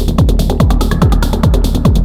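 Elektron Model:Cycles groovebox playing a hypnotic psy-techno pattern: a steady kick, fast hi-hats, and a bass line of short notes that each drop in pitch, about four a second.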